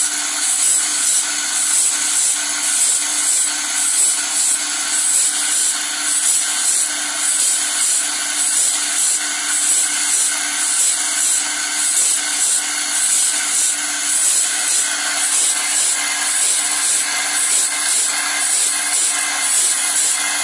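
Small electric-motor-driven grinding wheel sharpening the teeth of a wide band saw blade, tooth by tooth: a high scraping grind repeated in short, even strokes over a steady motor hum.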